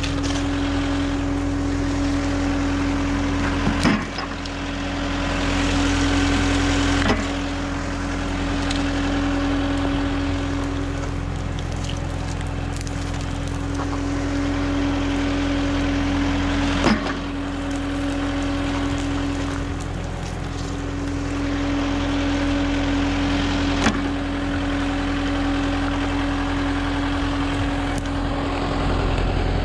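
A tractor's diesel engine idling steadily, with four sharp knocks spaced through it.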